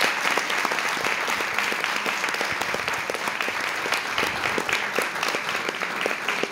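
Audience applauding steadily: a dense patter of many hands clapping at once.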